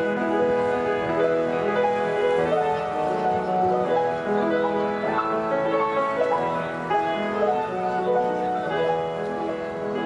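Background instrumental music led by piano, a continuous flow of notes.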